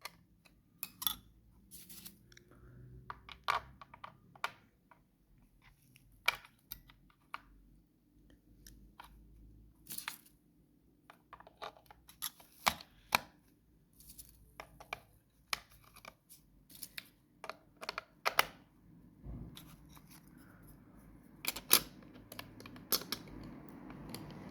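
Hands handling AA batteries and plastic packaging: scattered sharp clicks and taps with some tearing, and a rustling that builds near the end.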